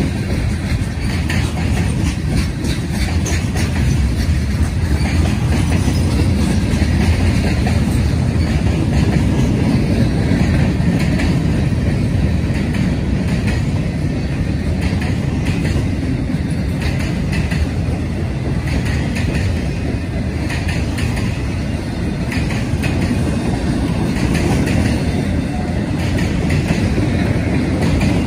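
CSX freight train's cars rolling past: a steady low rumble of steel wheels on rail, with the clickety-clack of wheels crossing rail joints.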